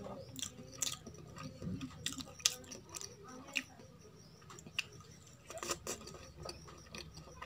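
Close-up eating sounds: chewing with scattered sharp, wet smacks and clicks as rice, kadhi and pakoda are eaten by hand.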